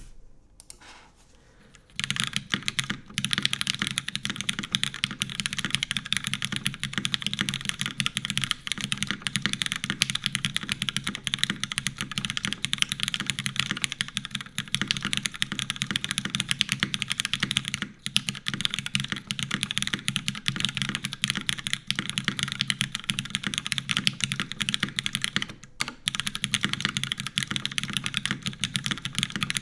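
Continuous fast typing on a Gehirn TKL custom mechanical keyboard with lubed Cherry MX Black linear switches, a full aluminium plate, GMK keycaps and no foam, set straight on the desk without a deskmat. The typing starts about two seconds in and runs with only a few short pauses.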